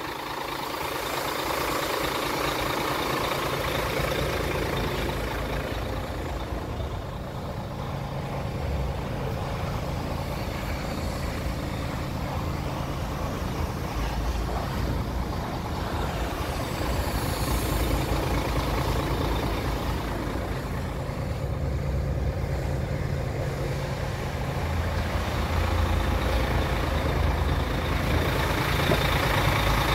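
Iveco Stralis 440S50 tractor unit's six-cylinder diesel engine idling steadily.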